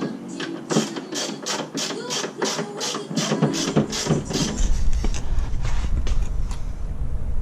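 Hand ratchet wrench turning a suspension bolt under a car: a quick, even run of pawl clicks, about four a second, stopping after about three and a half seconds. A steady low rumble follows.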